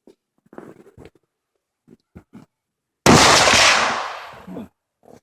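A single rifle shot about three seconds in: a sudden loud crack whose echo rolls on and fades away over about a second and a half.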